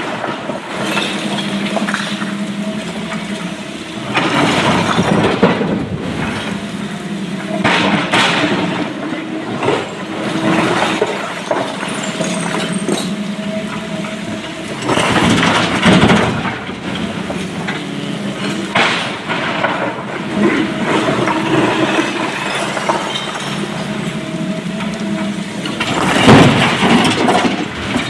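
SANY hydraulic excavator's diesel engine running steadily under load, with repeated loud crashes and clatter of broken stone dropping and scraping into a steel tipper truck body, about six times.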